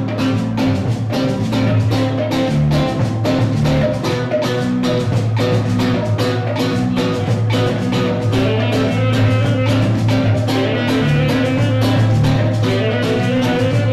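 A live band playing with a steady beat: electric bass, nylon-string acoustic guitar and drum kit, with an alto saxophone.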